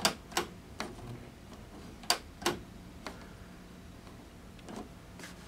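Irregular clicks and knocks from the tuning knob and dial mechanism of an old console radio being worked by hand, with something wrong with the dial cord. A faint steady hum runs underneath.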